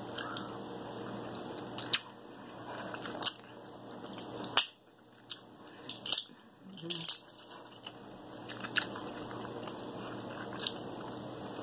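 King crab leg shells cracked and pulled apart by hand over a foil pan: scattered sharp cracks and crinkles, about seven of them, the loudest about four and a half seconds in. A steady low hum runs underneath.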